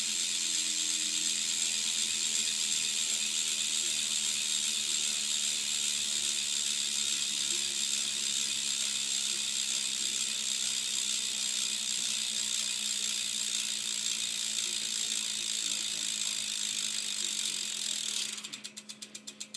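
Éclat BMX hub freewheeling, its ratchet clicking so fast that it runs together into a loud, steady buzz as the wheel spins free. Near the end the wheel slows and the buzz breaks into separate, rapid clicks.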